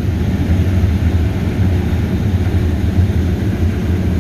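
Heavy farm machinery engine running steadily under load, a low, even drone.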